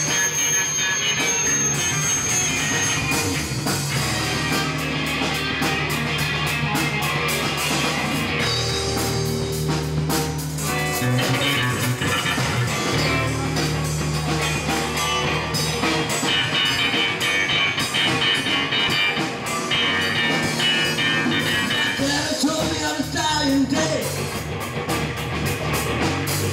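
Live blues band playing an instrumental passage: electric guitars over a steady bass line and drums.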